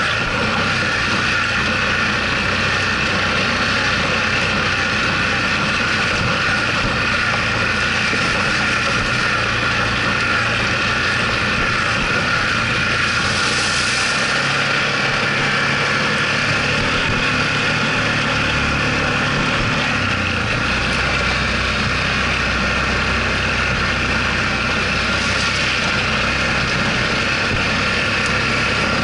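Yamaha ATV engine running steadily while riding over a dirt and gravel trail, its engine note dipping and then rising about halfway through as the throttle changes.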